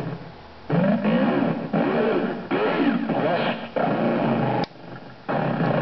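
Circuit-bent Texas Instruments Speak & Spell Compact's synthesized voice glitching: warped robotic syllables in bursts of about a second, their pitch sliding up and down. It cuts off with a sharp click about three-quarters of the way through, then starts again.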